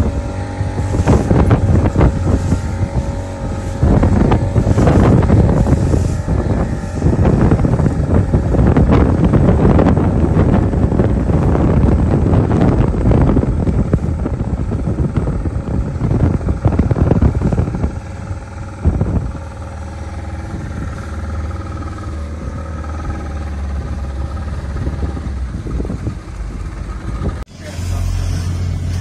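A towing tug's diesel engines running steadily under way, with a constant low hum. Gusts of wind buffet the microphone, heavy through the first part and easing later, and the sound changes abruptly near the end.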